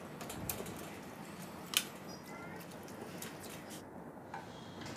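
Spoon stirring cooked jackfruit pieces in a nonstick wok: faint scattered clicks and soft taps against the pan, with one sharper tap a little under two seconds in.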